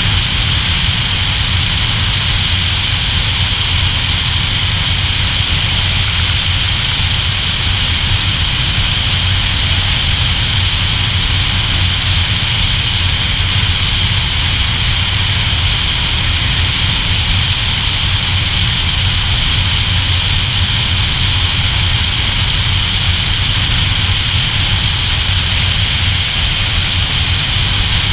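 Motorcycle cruising at a steady speed: the engine runs evenly under a continuous rush of wind, with no change in revs or gear.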